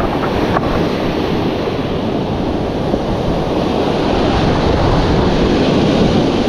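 Ocean surf washing against shore rocks, with wind buffeting the microphone; the wash grows louder about four seconds in.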